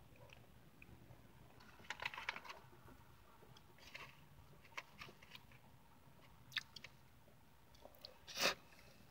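Close-up eating sounds: scattered clicks and crinkles of fingers scraping pineapple pie filling from an aluminium foil pie tin, with quiet chewing and lip smacks. The loudest is one short wet smack near the end as the fingers are licked.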